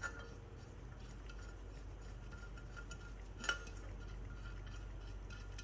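Low steady workshop hum with a single faint metallic clink about three and a half seconds in, as of a steel tool or part being handled.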